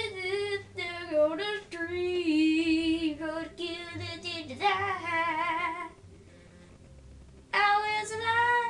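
A boy singing a tune without accompaniment in long, wavering held notes. The singing breaks off about six seconds in and starts again with a held note near the end.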